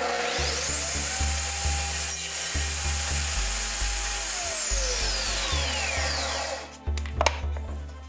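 Benchtop table saw motor starting up with a rising whine, running at a steady pitch for a few seconds, then switched off and winding down with a falling whine. Background music with a steady beat plays underneath, and there are a few sharp clicks near the end.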